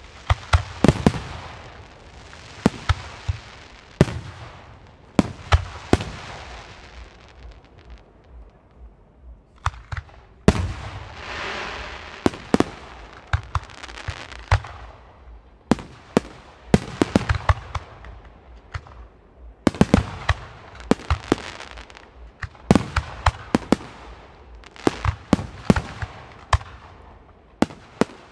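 Professional Weco fireworks display: aerial shells bursting in an irregular run of sharp bangs, often several in quick succession. After a short lull about eight seconds in, a loud bang at about ten and a half seconds is followed by a long hiss lasting several seconds.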